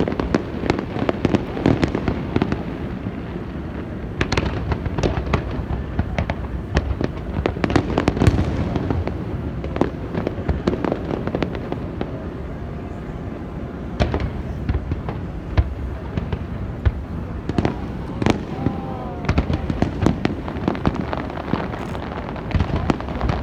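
Fireworks going off in a dense, continuous barrage: many sharp bangs and crackles overlapping at irregular intervals over a steady low rumble.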